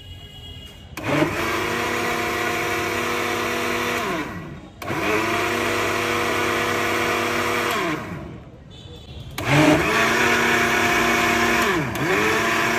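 Electric blender mixing wood apple juice, run in spurts of about three seconds. Between spurts it is switched off and the motor winds down with a falling pitch, then switched back on. Near the end the motor dips briefly and picks up again.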